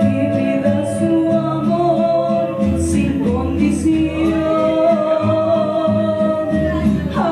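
A woman singing a song for her mother into a handheld microphone over instrumental backing music, holding long notes with vibrato.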